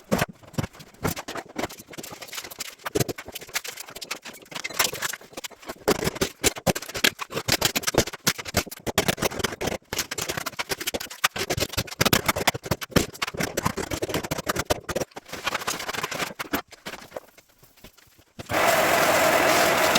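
Quick irregular knocking and tapping from hand work on flooring. About eighteen seconds in, a power tool starts and runs steadily and loudly.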